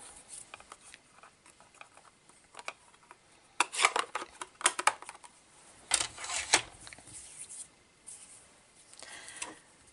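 Sharp clicks and light rustles of small craft items, ink pads, ribbon and paper, being handled and set down on a tabletop, in clusters about four and six seconds in and again near the end.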